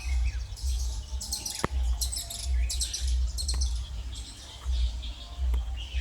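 Wild birds chirping in repeated clusters of high, rapid twitters, over a low irregular rumble.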